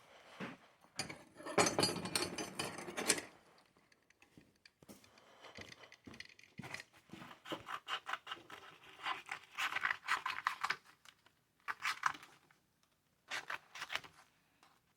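Hand sanding a steel knife blade: sandpaper scratching in runs of quick strokes, with pauses between the runs.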